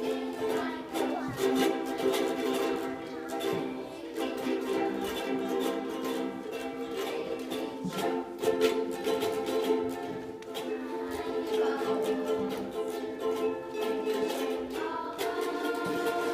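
Music on a plucked or strummed string instrument, sustained chords with frequent strums.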